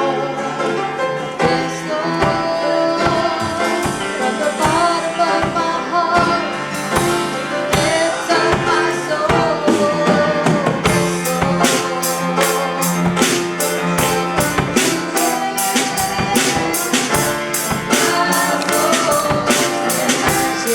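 Church music with a keyboard and a drum kit playing. The drums grow busier about halfway through, with steady strikes a few times a second.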